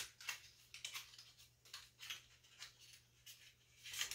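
Faint, irregular crinkles and clicks of a concealer's packaging being opened and handled by hand, a few a second.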